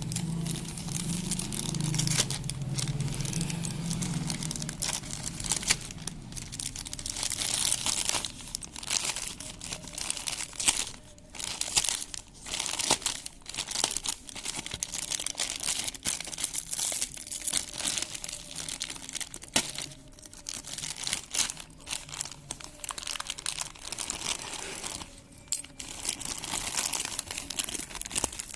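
Packaging being torn open and crumpled by hand: a long run of irregular crinkling, crackling and ripping.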